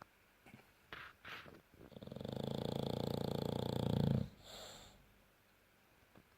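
French bulldog snoring: a few small snuffles, then about two seconds in one long snore with a rapid flutter lasting about two seconds, followed by a soft breath.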